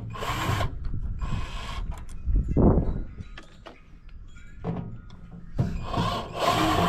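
Sheet-metal casing of a large microwave being handled and pried apart, with several short rasping scrapes and a dull knock about two and a half seconds in.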